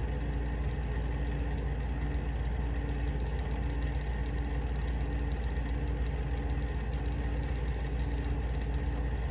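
Steady low mechanical hum, with a faint tone that comes and goes about once a second.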